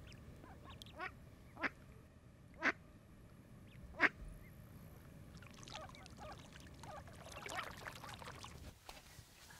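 Ducks quacking: four short calls spaced over the first four seconds, the last the loudest, then a spell of fainter chattering calls.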